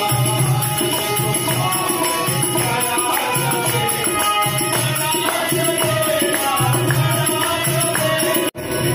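Hindu devotional bhajan: a man singing to a harmonium, with a dholak drum keeping the rhythm. The music breaks off abruptly near the end.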